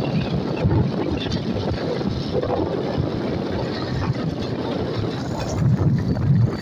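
Motorcycle engine running under way, mixed with wind buffeting the microphone. It grows a little louder near the end.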